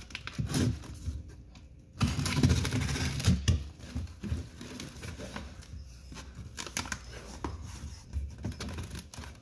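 Paper and cardboard scraping, rubbing and crinkling as the address label on a cardboard shipping box is removed, loudest a couple of seconds in.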